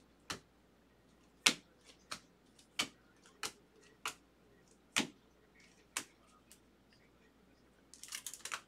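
Baseball trading cards being flipped through by hand, each card giving a sharp snap as it is slid off the stack: about ten flicks spaced half a second to a second apart. Near the end comes a quick flurry of card clatter as the cards are handled on the table.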